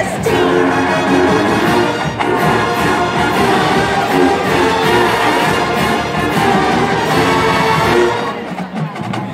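College marching band playing, brass to the fore with held notes and chords, easing off briefly near the end.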